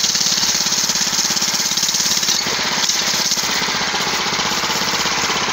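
Homemade go-kart's gasoline engine running steadily with a rapid, even firing rhythm as the kart creeps forward.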